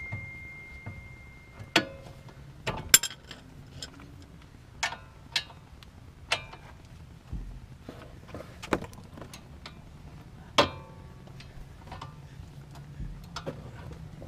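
Hand tools clinking and clicking against steel suspension parts at irregular intervals while the bolts on a front wheel hub assembly are tightened; the louder strikes leave a short metallic ring.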